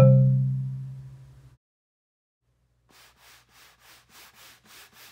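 A xylophone-like mallet note rings out and fades over the first second and a half. After a short silence, a soft rubbing swish repeats about three times a second and grows louder: a 'swishy swashy' sound effect for wading through long grass.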